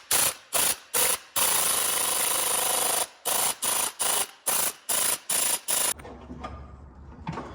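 Impact wrench hammering on a seized crank pulley bolt in short repeated blips. Three short bursts come first, then one long burst of about a second and a half, then a quick run of about seven short bursts that stops about six seconds in. The bolt does not break loose.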